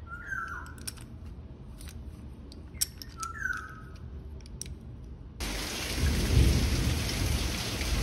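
Faint scattered clicks of a Swiss Army knife's Phillips screwdriver working a stainless steel hose clamp, with two short falling bird chirps, one near the start and one about three seconds in. About five seconds in, a steady, louder hiss of rain starts suddenly.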